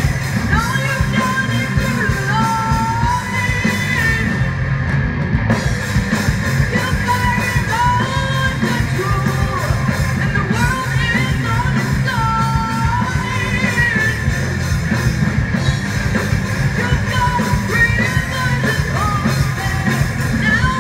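Live rock band playing: a woman singing a belted melody over distorted electric guitars, bass and a driving drum beat.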